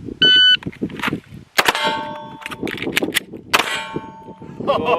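An electronic shot timer beeps once, then pistol shots crack and the steel targets ring after the hits. The two loudest strikes come about a second and a half and three and a half seconds in, each leaving a long ringing tone.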